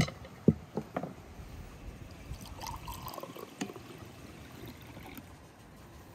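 A few knocks of dishes set down on a table, then a red fruit drink poured from a jug into a drinking glass, trickling for about a second.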